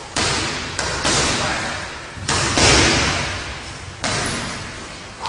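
Gloved punches landing on a heavy punching bag, about six heavy thuds at irregular spacing, each ringing on in a long echo of a large, bare hall.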